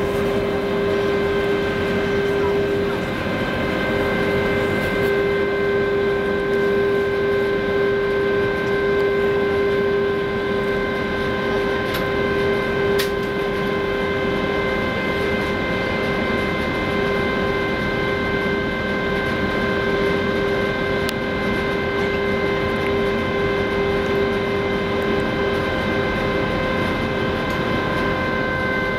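Silja Symphony cruise ferry passing close by, its machinery giving a steady drone with several steady whining tones over it.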